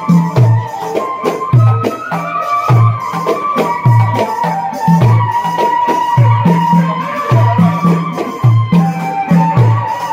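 Samai devotional music: a group of men singing together over a deep, steady drum beat, about one and a half strokes a second, with rattling percussion on top.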